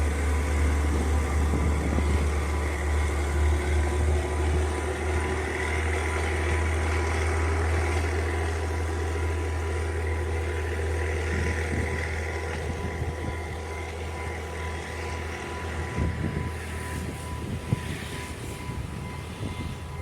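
Diesel train running with a steady low engine rumble that slowly fades over the last few seconds as it draws away.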